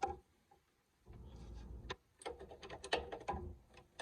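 Metal hand tools being handled on the car's rear suspension: a click, a low rumble, then a run of irregular sharp metallic clicks and taps.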